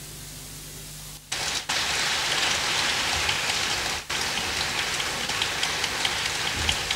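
Piano's last notes dying away, then audience applause starting about a second in and carrying on steadily.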